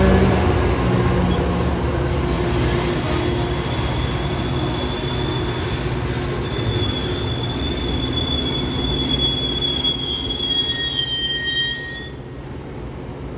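Metra commuter train passing: the EMD F40PHM-3 diesel locomotive's engine rumble fades over the first few seconds, then the bilevel cars' running gear gives a high, steady squeal. The squeal cuts off suddenly near the end, leaving a quieter rumble.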